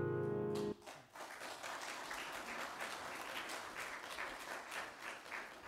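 The last piano chord held and cut off abruptly under a second in, then a congregation applauding, the clapping thinning out near the end.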